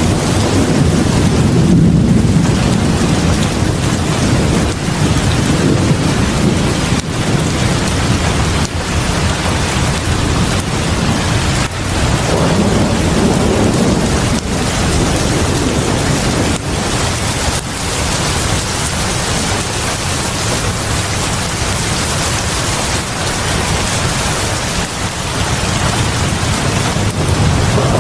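Heavy rain pouring steadily onto a house porch, a dense even hiss and patter. A low rumble swells and fades a few times.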